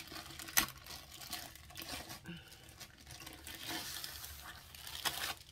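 Clear plastic sleeve around a rolled canvas crinkling and rustling as it is handled and pulled off. There is a sharp tap about half a second in and another near the end.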